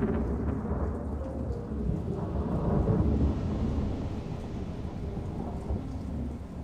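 Steady rain with low rolling thunder. The rumble swells to its loudest about halfway through, then eases.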